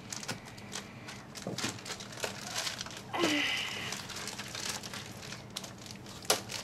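Clear plastic packaging crinkling and crackling as it is cut with scissors and pulled apart by hand, with one sharp snap near the end.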